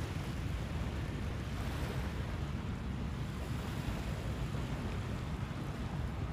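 Steady wash of small waves on the shore, with a low rumble of wind buffeting the microphone.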